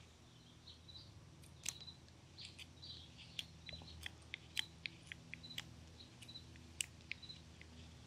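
Flexcut detail knife paring basswood by hand: a string of short, sharp slicing clicks, about a dozen spread irregularly, as facets are cut off the corners of a small carved bird.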